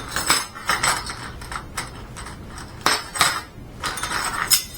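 Kitchen utensils and dishes clinking and clattering: a string of short, sharp knocks and clinks, with two louder ones about three seconds in and near the end.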